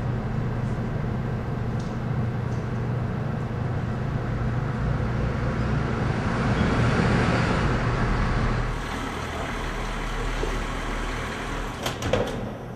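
Full-size van's engine running as it pulls in, loudest about seven seconds in, then dropping away as it stops near nine seconds. A couple of sharp door-latch clicks near the end as the driver's door is opened.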